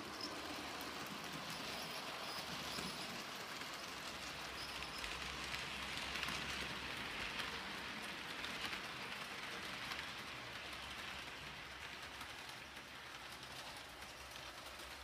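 Model train, an IHC locomotive pulling passenger cars, running on the layout's track: a steady whir and rolling wheel hiss that grows louder around the middle and fades toward the end.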